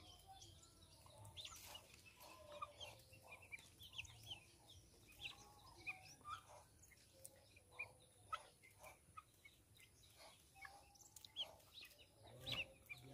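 Young guinea fowl keets peeping faintly as they feed, in short, high calls scattered all through, a few of them louder near the end.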